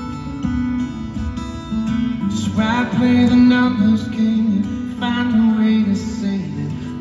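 Live solo steel-string acoustic guitar playing fingerpicked notes through an arena PA. A voice comes in with a wavering sustained line about two and a half seconds in and again about five seconds in.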